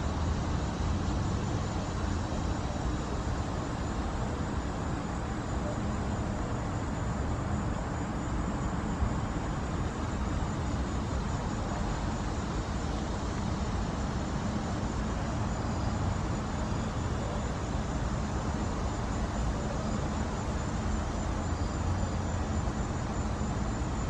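Steady outdoor background rumble of distant road traffic, with a faint, steady high-pitched tone above it.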